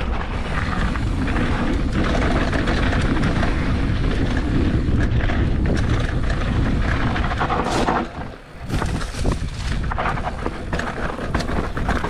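Wind rushing over an action camera's microphone while a mountain bike rolls down a dirt trail, with tyre noise and rattling from the bike; the noise drops briefly about eight seconds in.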